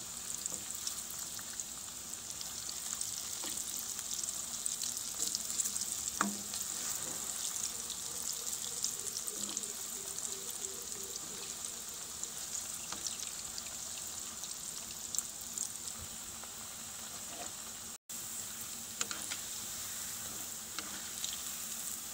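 Kala chana, potato and onion cutlets and fritters deep-frying in hot mustard oil in an aluminium kadhai: a steady high sizzle with scattered crackles. The sound drops out for an instant about eighteen seconds in.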